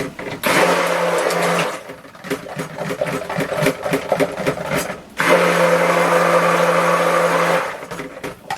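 Handheld stick blender mixing soap batter, run in two pulses, a short one near the start and a longer one about five seconds in, with the blender clinking against the bowl in between.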